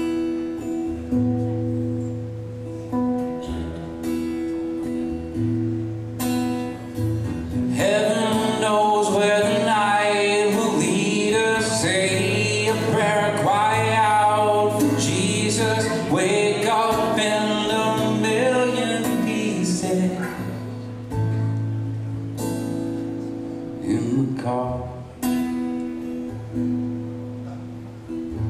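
Acoustic guitar strummed in a repeating chord pattern over a low bass note, with a man singing over it for about twelve seconds in the middle, then guitar alone again.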